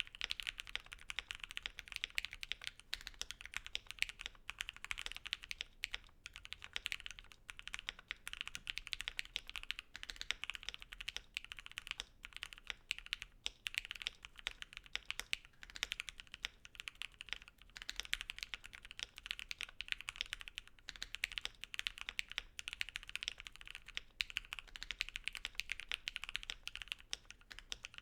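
Continuous typing on a Voice65 mechanical keyboard with JWK Dogikon linear switches lubed with Krytox 205g0 and filmed, on a PE plate with case foam. It makes a steady stream of keystroke clacks.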